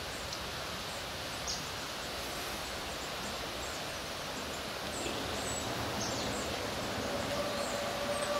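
Steady outdoor background noise with scattered short, high bird chirps. About seven seconds in, a faint steady tone sets in and holds.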